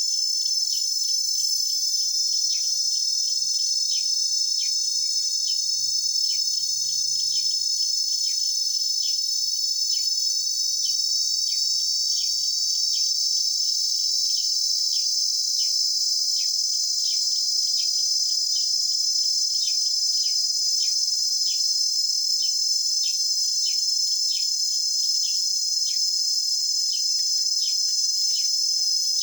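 Cicadas in chorus making a steady, shrill, high-pitched drone, with short chirps repeating about twice a second beneath it.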